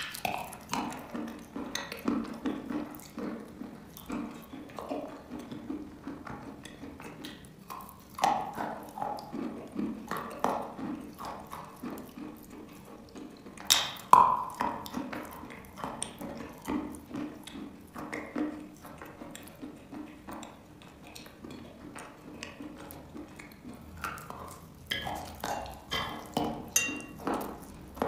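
Close-up mouth sounds of a person biting and chewing a slab of wet chalk: irregular crunches and wet, sticky chewing. A sharp crunch of a bite comes about fourteen seconds in.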